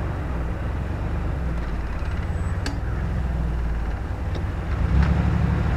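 Van's engine and tyre noise heard from inside the cabin while driving along a town street, a steady low rumble that grows louder about five seconds in.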